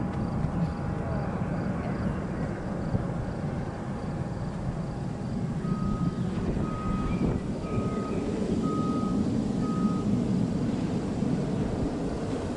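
Distant, steady rumble of a Boeing 737-800's CFM56-7B jet engines during its landing rollout. About halfway through, five beeps come about a second apart over the rumble.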